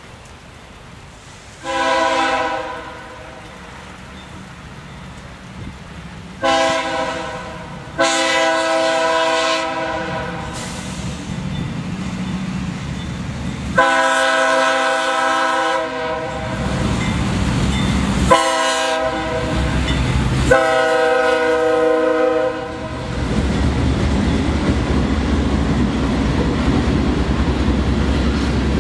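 Diesel freight locomotive's multi-note air horn sounding six long and short blasts as it works over a grade crossing. After the last blast comes the steady low rumble of the locomotives and freight cars rolling past.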